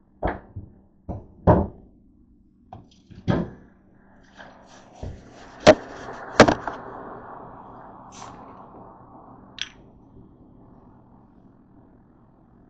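Knocks and thumps of a camera and a plastic soda bottle being handled and set down on a kitchen counter. Two sharp clicks about six seconds in are followed by a hiss that fades over a few seconds.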